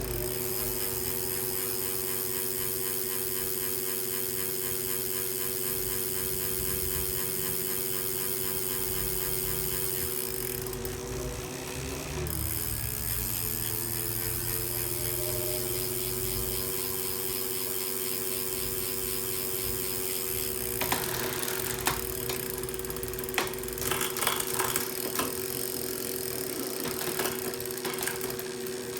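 Tacx Neo direct-drive bike trainer running, a steady whine of several tones, with a brief dip in pitch about twelve seconds in. In the last eight seconds irregular clicks and ticks are heard over it.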